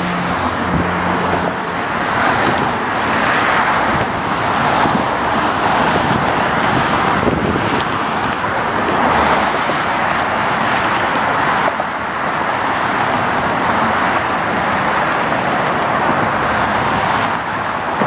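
Steady rushing noise of road traffic, swelling and easing as vehicles pass. A low hum fades out in the first second or so.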